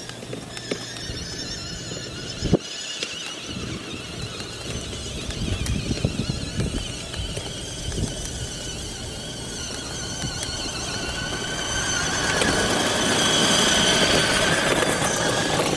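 Ryder Super Duty kids' electric ride-on truck driving in high gear: its drive motors and gearboxes give a steady high-pitched whine over a rumble and scattered knocks from the wheels on the ground. The whine grows louder about twelve seconds in.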